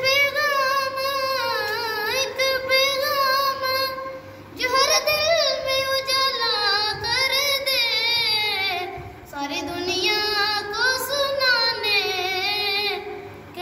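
A boy singing an Urdu naat solo into a microphone, unaccompanied: a high voice with long, ornamented, wavering held notes in phrases broken by short breaths.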